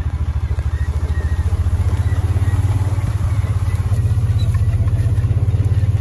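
Utility vehicle's engine running as it drives, a steady low throbbing putter at about a dozen pulses a second.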